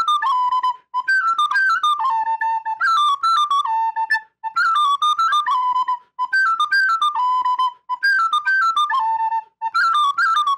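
Recorder playing a quick phrase over and over, about six times: fast grace-note flourishes falling to a held lower note, the ornaments used to imitate the sound of an Irish flute.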